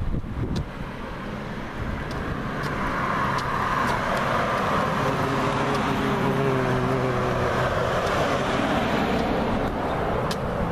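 A car passing on the road: engine hum and tyre rush build over the first few seconds, are loudest around the middle, and ease off slightly near the end.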